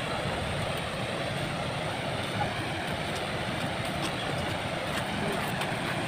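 Steady rumble and rushing noise of a moving vehicle.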